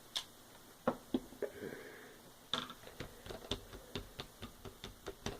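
Light, irregular clicks and taps of small craft items being handled on a work table.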